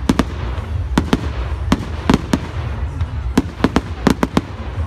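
Fireworks display: aerial shells and crackling stars bursting in a rapid, irregular string of sharp bangs and pops, about a dozen in under five seconds, over a steady low rumble.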